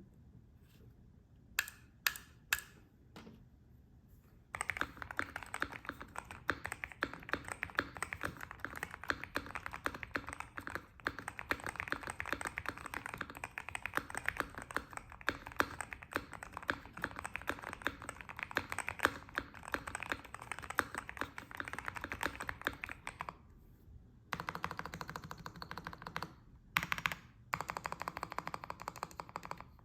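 GMK67 mechanical keyboard with Akko Cream Yellow V3 linear switches and stock stabilizers being typed on. A few single keystrokes come first, then about twenty seconds of fast, continuous typing. After a short pause near the end, the typing comes back in bursts.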